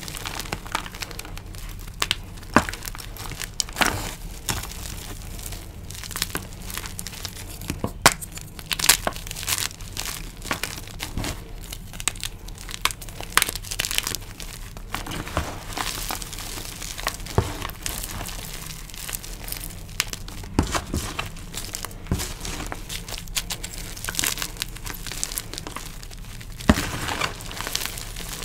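Hands squeezing and crumbling glitter-coated dyed gym chalk into powder: a steady run of soft crunches and crackles, with sharper snaps here and there as harder pieces break.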